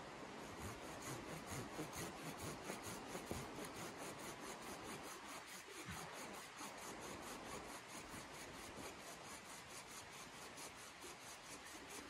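Small hand saw cutting a thin wooden pole, with quick, even rasping strokes, several a second.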